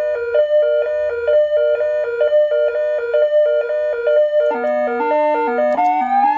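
SA830 400-watt electronic siren playing a programmed tone through its speaker: pure tones stepping rapidly between a few pitches several times a second. About four and a half seconds in, the pattern changes and takes in a lower tone, and near the end a rising wail starts to sweep up.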